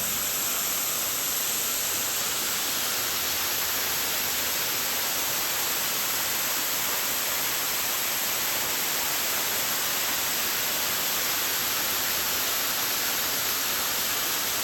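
A waterfall's falling water rushing steadily, an even, unchanging wash of noise.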